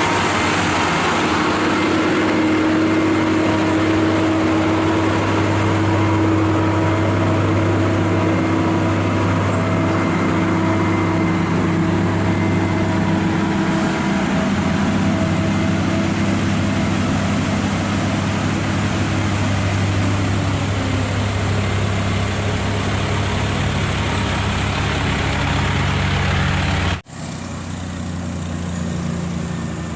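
A heavy truck's engine running steadily with a low hum. About three seconds before the end the sound cuts out for an instant and comes back quieter.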